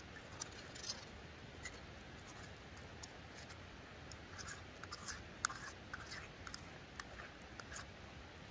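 Faint, irregular small clicks and scratches over a low steady hiss, busier around the middle and near the end.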